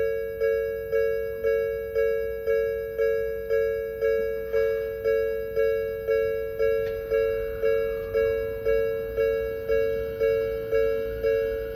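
Japanese level-crossing electronic warning bell ringing, one pitched ding repeated about twice a second, each strike fading before the next.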